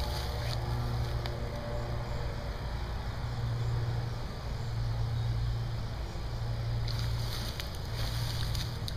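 Low rumble of wind buffeting the microphone, swelling and easing, with a few faint light clicks near the end.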